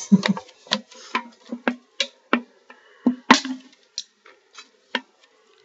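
Spitting tobacco dip into a Rockstar energy-drink can held at the mouth: a string of short clicks and taps from the aluminium can at uneven intervals, over a faint steady hum.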